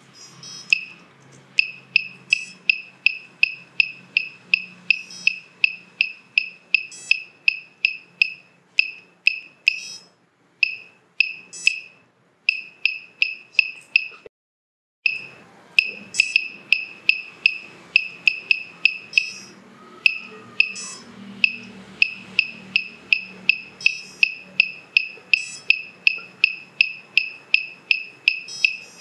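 KK2.1.5 flight controller's buzzer giving a short, high beep at each press of its push buttons, all at the same pitch and about three a second, as a PID gain value is stepped up and down. The beeps stop for a moment about halfway through.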